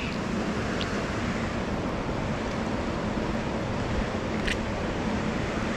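Steady rush of flowing creek water, an even hiss that does not change, with a couple of faint clicks about a second in and near the end.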